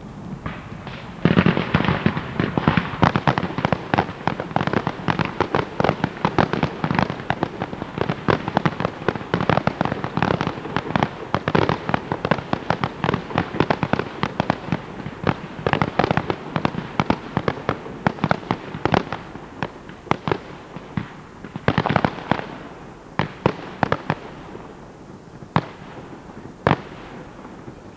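Professional aerial fireworks display: a rapid, dense barrage of bangs and crackles starts about a second in. It thins out over the last several seconds to a few single bangs.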